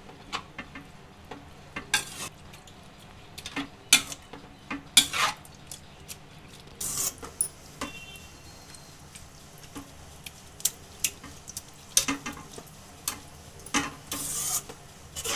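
Metal spatula scraping and knocking against a stainless-steel kadhai while grated bottle gourd cooking in milk is stirred, in irregular strokes, with a longer scrape near the end.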